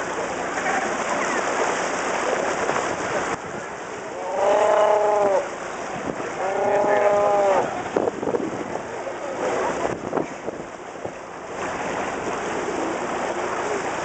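Sea lion colony calling over the wash of the sea, with two long bellows of about a second each, about four and six seconds in.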